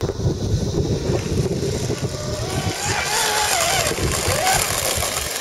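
Engine of a radio-controlled quarter-scale hydroplane running at speed, its pitch wavering up and down as it races across the water, over a low wind rumble on the microphone.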